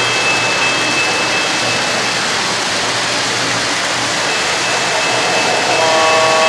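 O-gauge model trains rolling over the layout's track with a steady rumble and a faint high motor whine. About six seconds in, a locomotive's sound unit starts a sustained horn chord.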